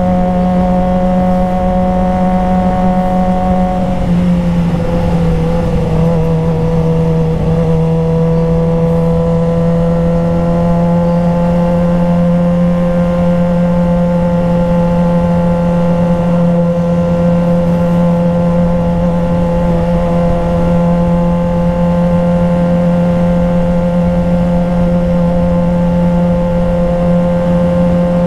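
Suzuki GSX-R sportbike engine running steadily at cruising speed, heard from on the bike. Its pitch drops slightly about four seconds in, then holds level.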